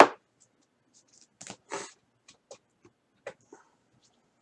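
A sharp tap at the very start, then faint rustles and light clicks as trading cards and a foil pack wrapper are handled and slid about by gloved hands.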